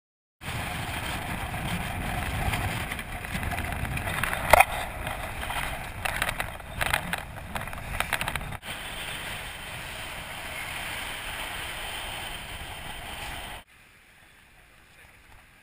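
Wind and rushing water from a Swan 45 racing yacht sailing fast in rough sea, heard through an onboard camera, with a low rumble of wind on the microphone and scattered sharp knocks, the loudest about four seconds in. The rush cuts off suddenly near the end, leaving a faint hush.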